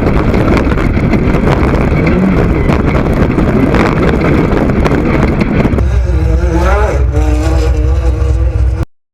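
Off-road race buggy's engine running loud and hard. About six seconds in, the engine note climbs and wavers in pitch as it revs, then the sound cuts off abruptly near the end.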